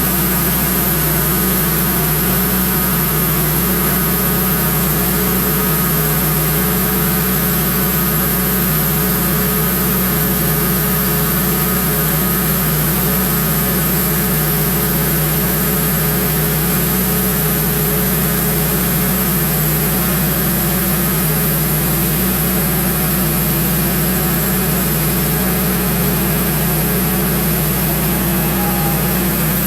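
Wood-Mizer LX150 bandsaw sawmill running steadily at a constant pitch while slabbing a large red oak log.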